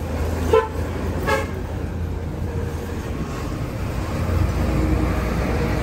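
A motor vehicle running close by: a steady low rumble, with engine tones growing stronger over the last couple of seconds.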